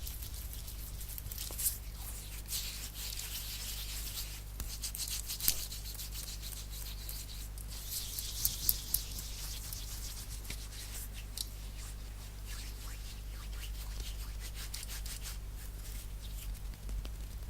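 Dry hands rubbing together quickly close to the microphone, with a few sharp taps.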